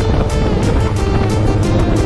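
Background music with a fast, steady beat, about four hits a second.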